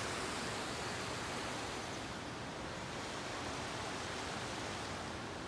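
Steady rushing of a shallow, rocky river flowing over stones.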